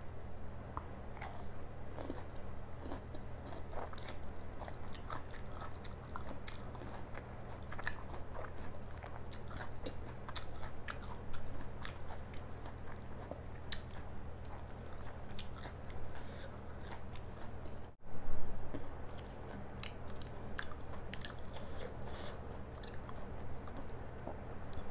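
Close-miked mouth sounds of a person biting and chewing paratha with stuffed capsicum: many small wet clicks and crunches over a steady low hum. About two-thirds of the way through there is a momentary dropout, followed by a brief louder bump.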